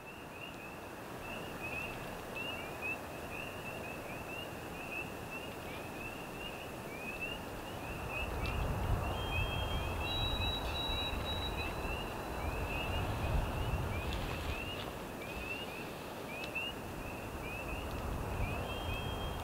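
Chorus of spring peepers: many short rising peeps overlapping without a break, with a steady higher tone joining about halfway.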